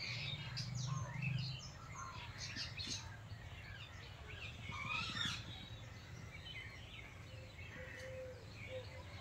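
Several birds chirping and calling, a busy mix of short high chirps and quick whistled glides, over a faint low hum that is stronger in the first second or so.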